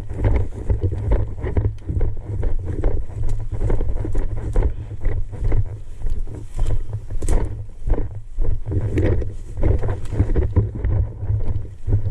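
A player running in airsoft gear: heavy thudding and buffeting on the body-worn camera's microphone, pulsing about twice a second with the strides, with rustling and rattling of gear. The noise cuts off suddenly at the end.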